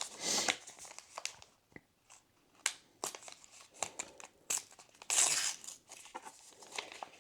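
Star Wars Unlimited booster pack wrapper crinkling and tearing open, with the cards sliding out. Two louder rips come about a quarter second in and around five seconds in, amid scattered crackles.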